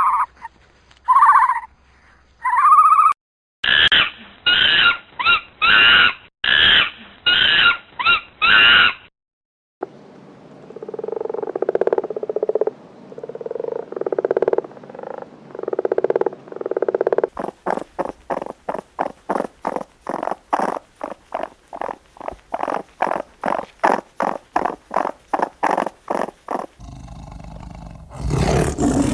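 Calls of several different animals in turn, cut one after another: three short high calls, then a run of about eight loud calls, then a slower series of lower calls, then quick repeated calls at about two or three a second.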